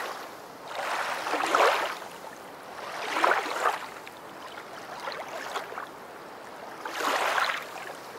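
Water splashing and rushing around the nose of a stand-up paddleboard, heard close from a board-mounted camera. It swells in surges about every two seconds with the paddle strokes.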